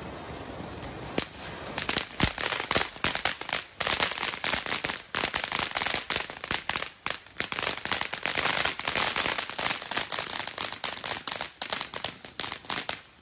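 Consumer fireworks popping and crackling in a dense, rapid string for about eleven seconds. A single sharp bang about a second in leads it off, and the popping cuts off suddenly near the end.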